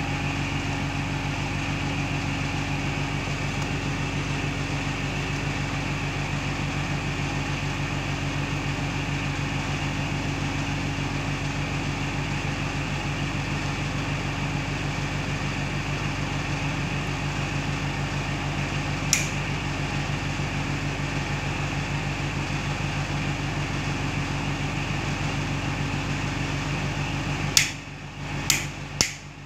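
Steady low mechanical hum throughout, with one sharp click about two-thirds of the way through. Near the end the hum drops away and a modular rocker switch on a glass switch plate clicks four times as it is pressed on and off.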